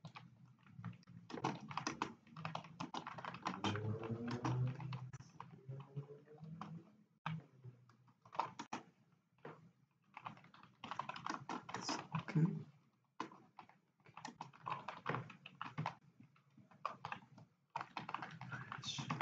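Computer keyboard typing: bursts of rapid keystrokes separated by short pauses.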